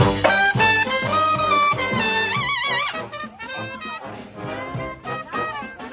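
A marching brass band of trumpets, trombones, saxophones and sousaphones playing a New Orleans-style jazz tune. About two and a half seconds in the horns hold notes with a wide vibrato, and the playing turns quieter just after.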